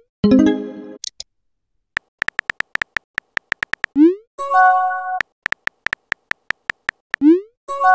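Messaging-app sound effects: a synthesized chime near the start, then two runs of short keyboard tap clicks. Each run ends in a quick rising swoop followed by a brief chord-like tone as the message is sent.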